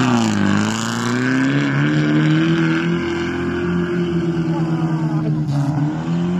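UAZ off-road 4x4's engine revving hard as the vehicle accelerates away across a wet field. The engine note dips about half a second in, then climbs and holds high and steady, sagging briefly near the end.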